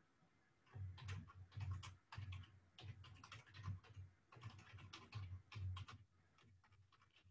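Typing on a computer keyboard: a quick, irregular run of key clicks starting about a second in, thinning out to a few faint taps near the end.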